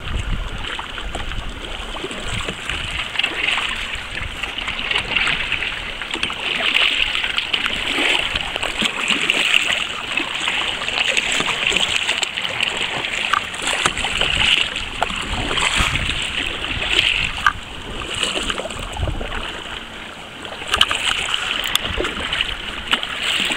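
Choppy sea water splashing and sloshing around a kayak, a continuous restless wash with irregular low rumbles of wind on the microphone.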